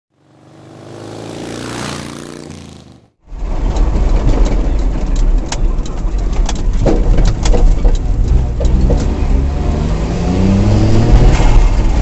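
A short swelling intro sound, then a vehicle's engine and road noise through a dashcam: a heavy low rumble with scattered clicks and rattles, the engine note rising near the end as it accelerates.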